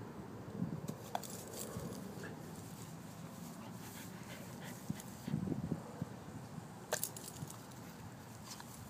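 Boston terrier making short breathy sounds and small whines in two brief clusters, about half a second in and about five and a half seconds in. A few sharp clicks come around the first two seconds and again at seven seconds.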